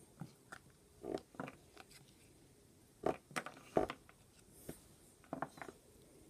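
A Kinder Egg's chocolate shell being cracked apart by hand and its orange plastic toy capsule handled: scattered short cracks and clicks.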